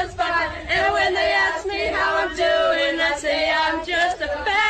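Voices singing together in a chant-like tune, long held notes broken by short pauses.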